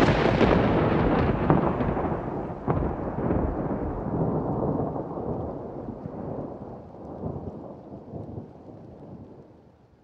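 Thunder: a loud clap that rumbles on, with sharper cracks about one and a half and nearly three seconds in, slowly fading away.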